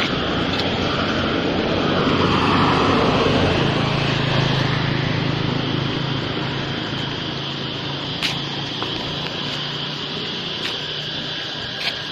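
Street traffic: a motor vehicle passes, its engine hum swelling and its pitch falling about two to four seconds in, then fading into steady road noise, with a few faint ticks.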